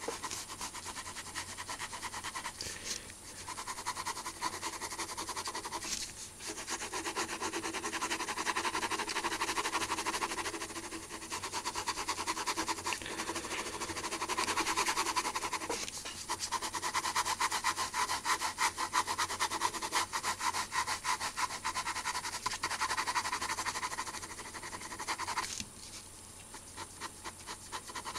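Pen scratching on paper in rapid back-and-forth hatching strokes. The strokes run on in long runs with a few brief pauses and go quieter near the end.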